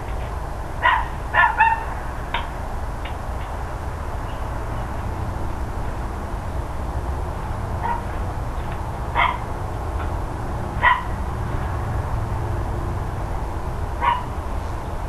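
Dog barking in short, sharp single barks: a quick run of four about a second in, then isolated barks spaced a few seconds apart, over a steady low rumble.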